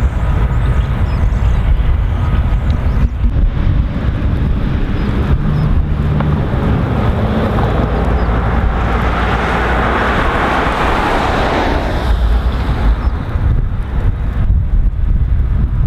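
EMD SW1500 switcher locomotive running as it moves slowly with a short cut of boxcars: a steady low diesel rumble mixed with wind on the microphone. A hiss swells about nine seconds in and dies away about three seconds later.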